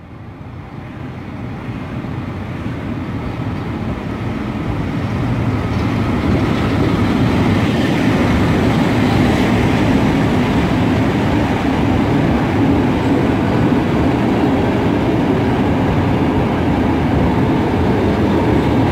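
An arriving passenger train hauled by an EP07 electric locomotive. Its rumble grows louder over the first several seconds as it draws alongside, then holds steady as the coaches roll slowly past.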